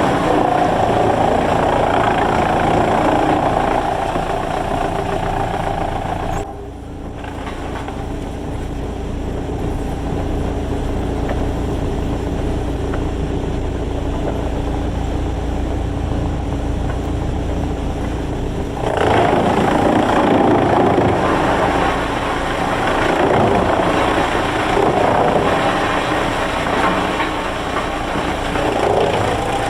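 Heavy machinery engine running steadily. About six seconds in the sound changes abruptly to a deeper, lower rumble, and about nineteen seconds in a louder, fuller mechanical noise returns.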